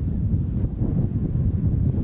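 Wind buffeting the camcorder microphone: a loud, irregular low rumble.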